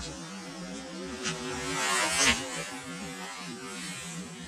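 A hooked coho salmon thrashing at the surface, the splashing swelling to its loudest about two seconds in, over a steady low buzzing hum.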